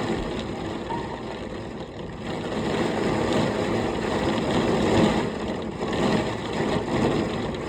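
Heavy thunderstorm rain and gusting wind, a steady rushing noise that swells a little louder about two and a half seconds in.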